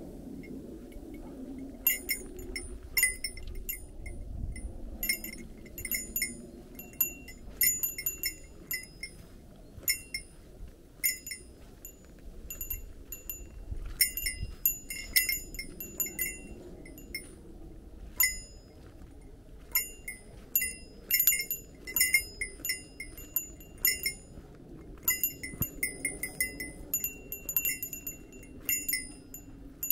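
A small metal bell jingling over and over in uneven clusters of bright, ringing clinks, starting about two seconds in, over a low steady rumble.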